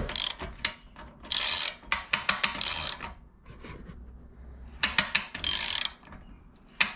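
Socket ratchet wrench clicking as it turns a garage door's torsion-spring winding unit, in several short bursts of rapid clicks with pauses between strokes: the spring is being wound up to tension, turn by turn.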